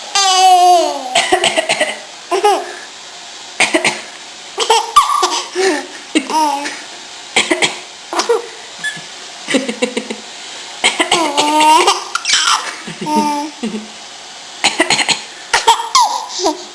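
A woman coughing again and again in short bursts, and a five-month-old baby laughing in reply between the coughs, starting with a high falling squeal.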